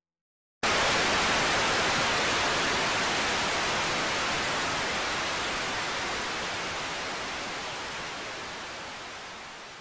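Static hiss like an untuned television, cutting in abruptly about half a second in and then fading slowly and evenly.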